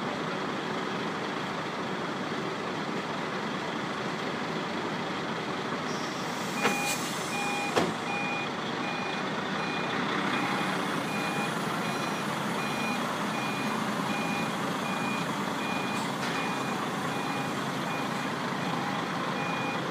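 A heavy truck's diesel engine running steadily, with a reversing alarm that starts beeping about a third of the way in and keeps going at roughly one beep a second. Two sharp knocks about a second apart come as the beeping begins.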